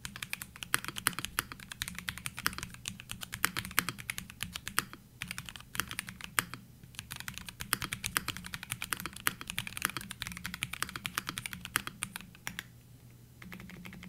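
Typing on a MelGeek Mojo 84 mechanical keyboard with linear custom plastic Kailh switches and a silicone mute pad: a quick, gentle stream of soft keystrokes, typing really quietly, with short pauses about five and seven seconds in.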